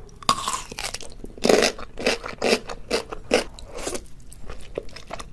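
Close-miked crunchy bite into a large chunk of yellow pickled radish, then loud crunching as it is chewed, about two crunches a second, fading to softer chewing near the end.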